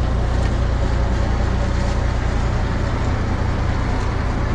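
A fishing boat's engine running steadily: an even low drone under a constant wash of noise.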